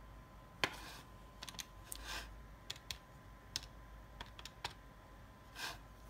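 Light clicks and short scratchy strokes at irregular intervals, about a dozen in six seconds: a pen writing out a long multiplication by hand.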